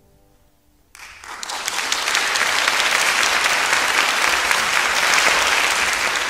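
The last notes of two pianos fade out faintly, and about a second in an audience starts applauding, swelling quickly to steady, full applause.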